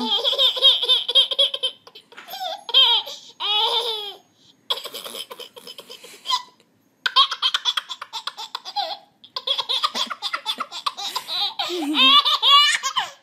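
Baby laughing hard in repeated bouts of belly laughter, broken by short pauses for breath.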